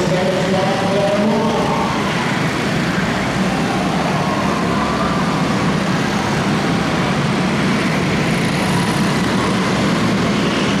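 Several Jr. Honda quarter midget race cars with small single-cylinder Honda engines running at speed around an indoor arena track. It is a steady, unbroken engine drone with the pitches of the individual engines wavering as the cars pass.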